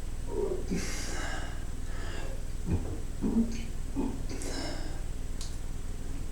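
A person gulping down air to build up a belch: two sharp breaths in and a few short, low gulping swallows.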